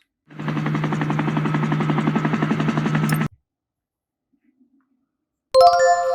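A steady, low-pitched buzz with a fast rattle lasting about three seconds, then a sudden bright chime-like ding of several ringing tones near the end.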